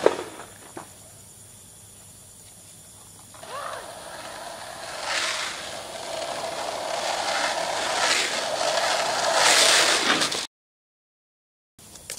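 Skateboard wheels rolling on asphalt, the noise growing steadily louder as the boards approach, then cutting off suddenly.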